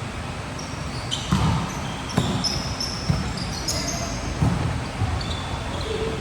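Volleyball play in a gym: ball thuds about once a second in the hall's echo, with short high squeaks from shoes on the court.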